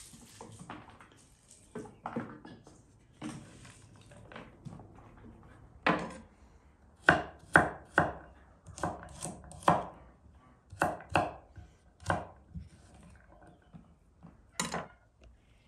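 Chef's knife chopping garlic cloves on a wooden cutting board: a few softer knocks at first, then about a dozen sharp, uneven strikes on the board, with one last strike near the end.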